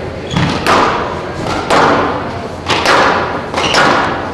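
A squash rally: the ball is struck by racquets and smacks off the court walls several times, each hit ringing on in the enclosed court. A few short high squeaks, typical of court shoes on the floor, come between the hits.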